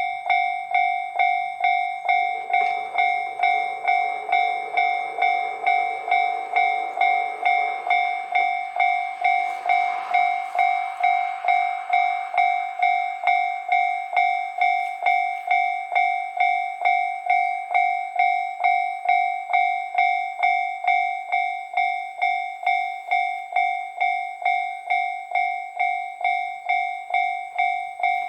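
Japanese railroad crossing warning bell ringing steadily, about two strikes a second, each strike ringing out before the next. A fainter, lower sound rises under the bell between about two and twelve seconds in.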